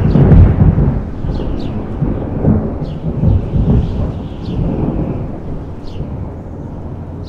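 A deep, rolling rumble, loudest in the first second and slowly fading, with short high chirps about once a second.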